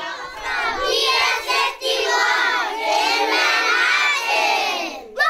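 A group of children shouting together, many high voices at once, stopping abruptly about five seconds in.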